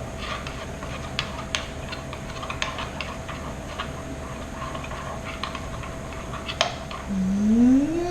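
Light, irregular clicks and taps of a spoon stirring a thick glue-and-soda slime mixture in a container, over a steady hum. About seven seconds in, a person's voice rises in pitch in a loud, drawn-out sound.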